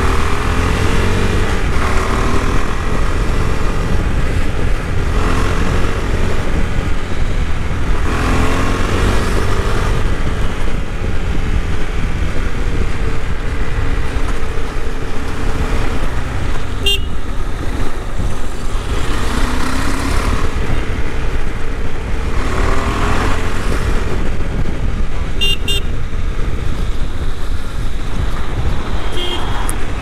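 KTM 390 Adventure's single-cylinder engine under way, its note rising and falling repeatedly with the throttle, over a steady rumble of wind and road noise. A few short horn toots sound in the second half.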